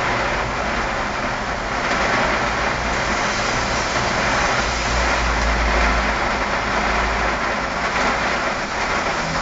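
Heavy rain pouring down in a steady hiss. About halfway through, a car passing on the wet road adds a low rumble.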